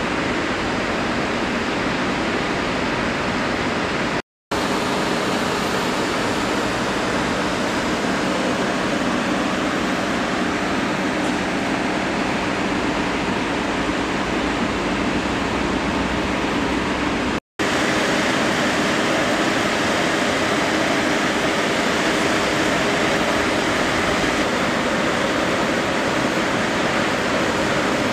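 Steady roar of jet aircraft running at idle on a flight line, a continuous rush with a faint low hum under it. It cuts out twice for an instant, about four seconds in and about seventeen seconds in.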